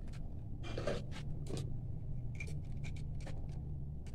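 Small screwdriver scraping and clicking against a switchboard terminal screw as a loose wire is fitted back in, a string of short scrapes and clicks over a steady low hum.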